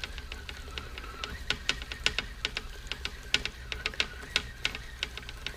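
Okuma line-counter trolling reel being cranked by hand, winding lead core line onto the spool, its gearing and counter mechanism ticking evenly at about four ticks a second.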